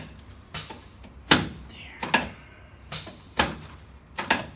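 Spinal adjustment thrusts on a patient lying face down on a chiropractic table: a run of about seven short, sharp knocks, roughly one a second or a little faster.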